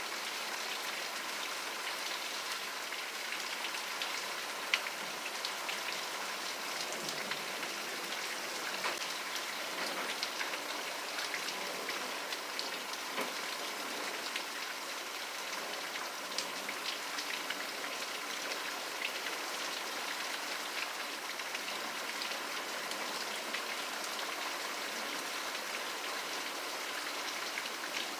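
Steady rain falling, an even hiss with individual drops ticking sharply on a surface throughout.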